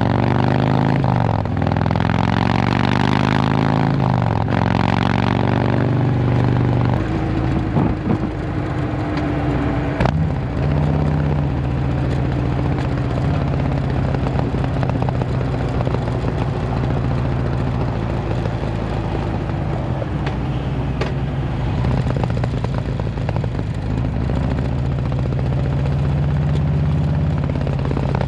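Harley-Davidson V-twin running through an S&S Sidewinder 2-into-1 exhaust, revved up and back down a few times in the first several seconds, then settling into a steady idle.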